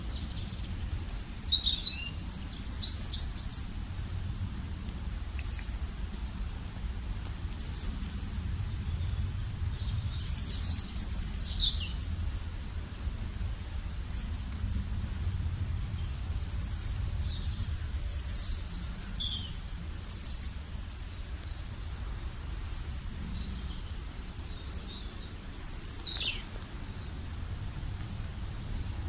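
Birds chirping and twittering in short bursts of quick high notes every few seconds, over a faint low rumble.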